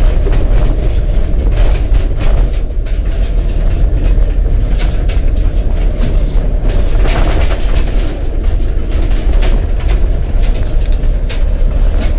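Inside the cab of a work van driving over a rough, rutted dirt road: a loud, steady low rumble of engine and tyres, with the van's body rattling and knocking over the bumps, the clatter heaviest about seven seconds in.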